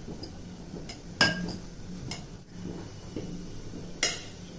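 Metal spoon clinking against a stainless-steel puttu tube and a glass bowl as damp flour is scooped and spooned into the tube: two clear ringing clinks, about a second in and near the end, with a few fainter taps between.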